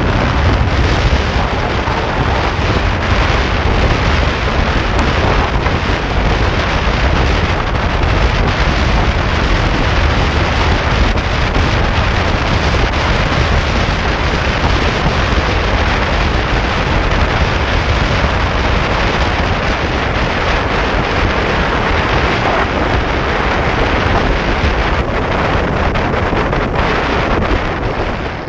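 Steady rush of wind on the microphone of a GoPro Hero4 Session riding on a Yamaha R15 motorcycle cruising at about 100 km/h.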